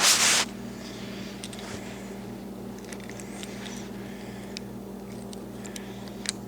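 A brief rustling scrape of the camera being set down, then faint scattered small clicks of metal shotgun trigger parts being handled over a steady low hum.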